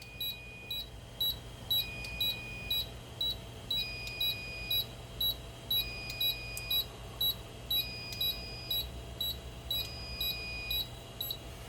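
Fire alarm system trouble sounder beeping for a low-battery trouble condition. Short high beeps come about twice a second, with a longer one-second tone every two seconds.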